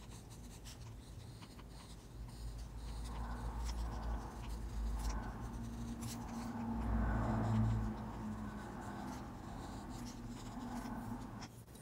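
Mechanical pencil scratching on paper in short, light strokes, sketching an outline.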